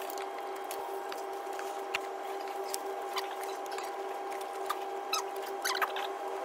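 Hand tools working on gearbox bolts under a car: scattered light clicks of a socket and ratchet, with short squeaks near the end, over a steady hum.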